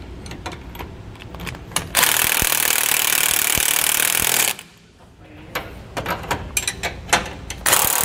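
Cordless impact wrench hammering a 15/16 nut tight on a sway-bar hanger bolt: one burst of about two and a half seconds, then a short second burst near the end. Light metal clinks of the wrench and socket on the bolt come before and between the bursts.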